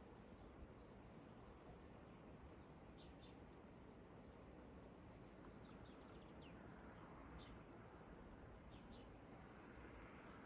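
Faint steady high-pitched insect trill, with a few short bird chirps scattered through it.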